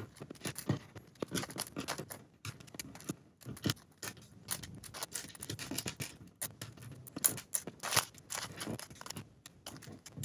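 Small plastic bags of toy building-block pieces being handled and opened: irregular crinkling with many light clicks of plastic.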